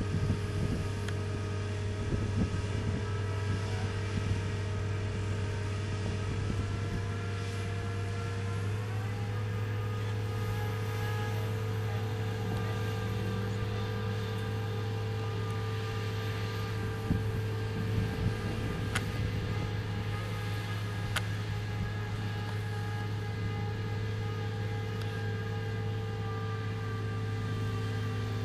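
Diesel engine of a Terex mobile crane running steadily under load while hoisting a suspended air-conditioning unit, its pitch stepping up slightly about a third of the way through. Two short clicks come in the second half.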